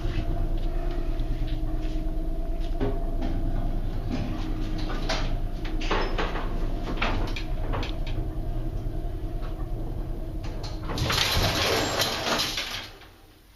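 Antique Westbrook elevator car traveling between floors: a steady low machinery hum with scattered clicks and knocks. Near the end comes a louder scraping rush lasting about two seconds, and then the sound drops away.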